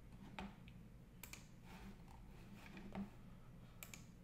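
Near silence with a few faint, sharp clicks of a computer mouse, scattered across the few seconds.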